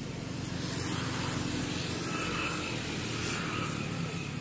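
Engine noise of a passing motor vehicle, swelling over the first second, holding, then easing off near the end.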